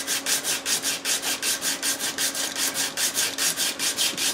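Hand sanding block loaded with coarse 36-grit paper rasping back and forth over hardened body filler, about five quick strokes a second.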